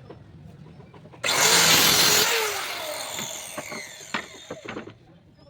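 A woodworking power tool starts suddenly and runs loudly for about a second. It then winds down with a falling pitch and fades out over the next two to three seconds, with a few light clicks.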